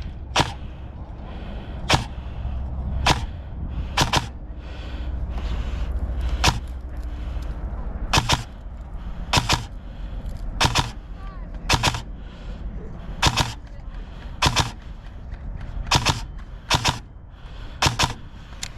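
Airsoft rifle firing single shots, one sharp crack about every second, around fifteen in all, over a low steady rumble.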